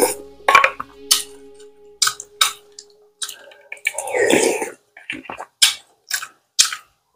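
Close-up eating sounds: spoon against a glass bowl of rice soaked in broth, and chewing and mouth smacks. They come in short sharp clicks about every half second, with a longer noisy stretch about four seconds in.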